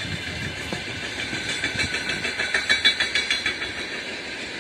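A train passing, its wheels clattering rhythmically over the rails, loudest a little past the middle.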